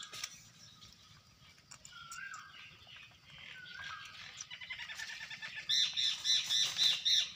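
A bird calling: a few short whistled notes spaced a couple of seconds apart, then near the end a fast run of loud, high chirps, about four or five a second, lasting a second and a half.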